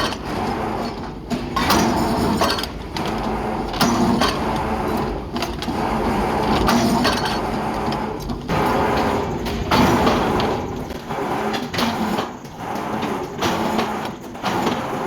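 Metalworking factory noise: irregular clattering and scraping of metal in quick, uneven surges over a faint steady machine hum.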